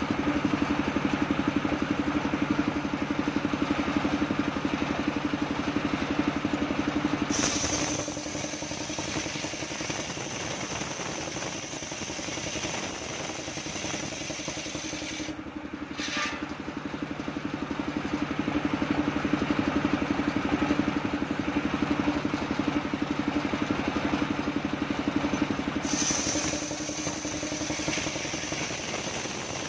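Homemade circular saw bench ripping a coconut log lengthwise, the blade cutting through the wood over the steady running of its drive. The sound drops in level about seven seconds in, when a high whine comes in, and grows loud again for a stretch after about seventeen seconds.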